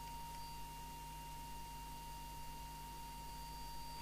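A steady, faint, single-pitched test tone, the audio tone modulating the CB transmitter while its FM deviation is being aligned on a radio test set.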